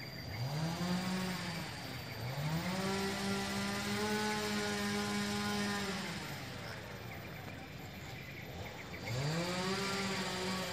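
Anoa (dwarf buffalo) lowing: three drawn-out moo-like calls, each rising in pitch, holding, then falling away. The second, about two seconds in, is the longest at some four seconds, and the third begins near the end.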